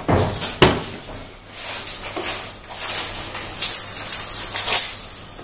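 Kitchen handling noises: two sharp knocks in the first second, a few lighter knocks after, then a short hiss about three and a half seconds in.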